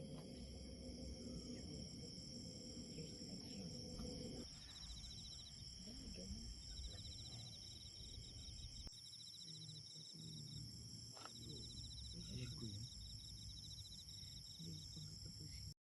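A faint chorus of insects chirring at a steady high pitch, with a rapid pulsing trill that starts about four seconds in and comes and goes. A low steady hum underneath stops abruptly about four seconds in.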